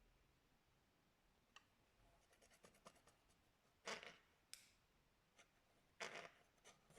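Slime being handled: small sticky clicks and crackles, then two louder short squishes about two seconds apart.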